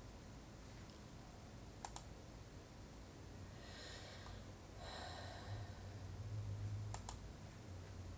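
Computer mouse clicks over faint room noise: a quick double click about two seconds in and another about seven seconds in, with a soft rustle near the middle.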